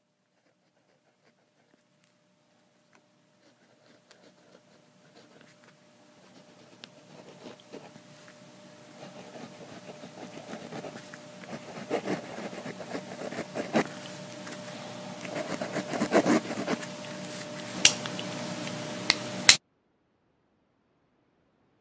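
Scratchy rubbing noise peppered with clicks over a faint steady hum, swelling gradually louder for about fifteen seconds, with two sharp clicks near the end, then cutting off abruptly into silence.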